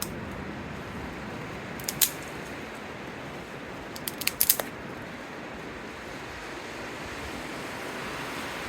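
Steady rushing wind noise, with a sharp click about two seconds in and a quick run of several clicks or snaps a little after four seconds.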